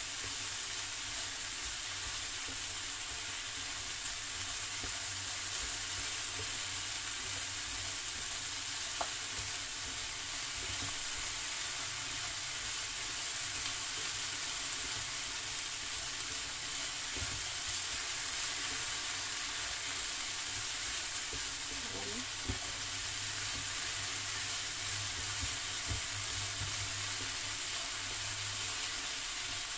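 Diced potatoes, carrots, onion and garlic sizzling steadily in olive oil in a frying pan as they are stirred, with a couple of light knocks of the utensil against the pan.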